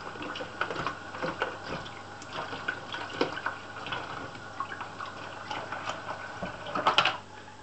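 Kitchen tap running into a stainless steel sink while a plastic bucket and its lid are scrubbed with a cloth, with frequent small knocks and rubbing of plastic. A louder clatter of plastic comes near the end.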